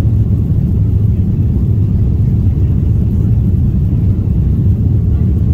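Steady low rumble of an Airbus A330-300 airliner heard from the economy cabin during departure: engine and airflow noise running evenly.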